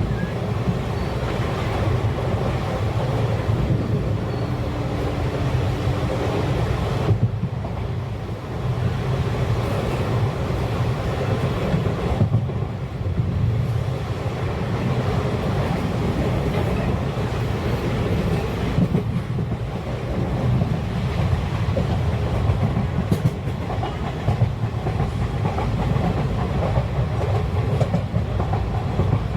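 A passenger train running along the track: a steady rumble of wheels on rails.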